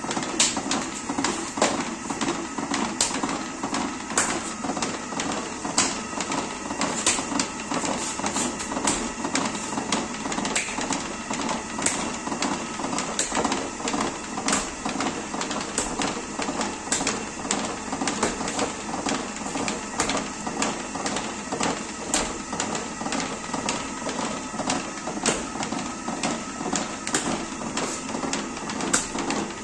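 Potter's wheel spinning while wet clay is shaped on it by hand: a steady hum with a sharp click roughly once a second.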